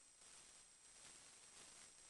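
Near silence: faint hiss with a thin steady high-pitched whine, swelling slightly a few times.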